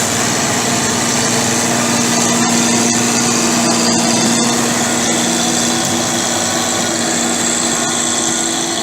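Diesel engine of farm machinery in a muddy rice field running steadily, with an even, unbroken hum.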